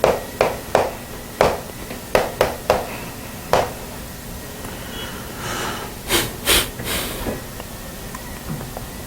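Sharp taps on a hard surface, two or three a second, stopping about three and a half seconds in; then a few short hissing noises around six seconds in.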